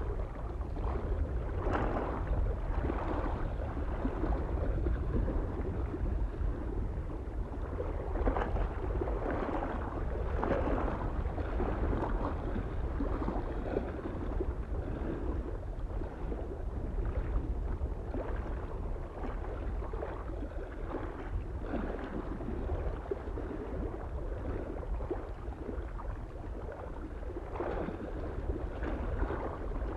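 Small lake waves lapping and splashing against the shore at irregular intervals, over a soft steady wind.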